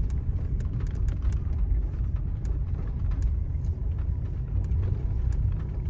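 Vehicle driving, a steady low rumble of engine and road noise with frequent small ticks and knocks throughout.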